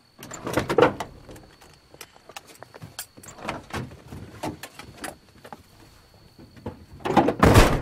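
Car doors opening and shutting as two people climb out of a parked car, with clicks, knocks and seat rustling in between. The loudest sound is a door slamming shut near the end.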